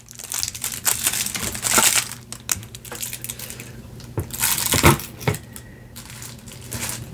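Clear plastic wrapping on a table tennis blade crinkling as the blade is handled, loudest in the first few seconds, then a few light knocks about four to five seconds in.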